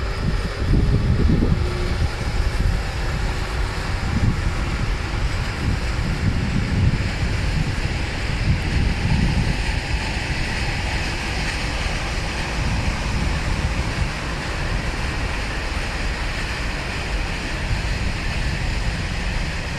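Long, heavy freight train rolling past: a steady low rumble of wagon wheels on the rails, with wind buffeting the microphone.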